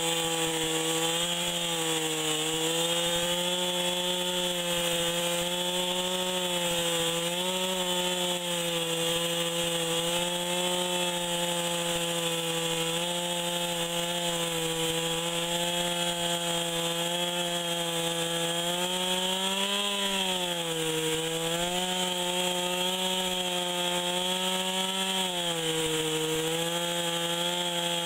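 Gas chainsaw at full throttle cutting into a large red oak log, its engine note steady and dipping briefly under load a couple of times in the last third.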